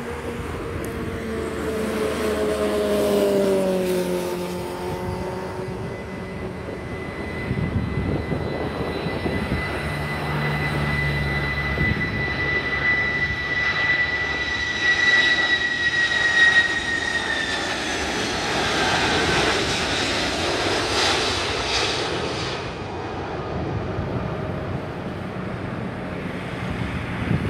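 Boeing 747-400F freighter passing low overhead on final approach: jet engine noise with a steady high whistle that drops in pitch about eighteen seconds in as the aircraft goes by. The noise is loudest just before the pitch drop and then fades.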